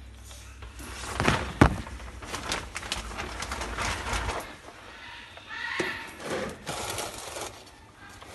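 Triton cockatoo chicks moving and calling, with a run of irregular scratchy clicks and knocks, the loudest a sharp click about one and a half seconds in, and a brief raspy call around six seconds.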